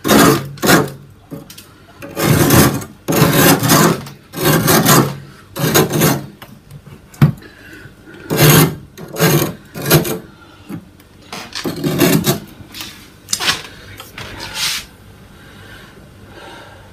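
A hand scraping thick frost off the inside walls of a freezer: a run of short, scratchy rasping strokes, about one a second. The strokes stop a couple of seconds before the end.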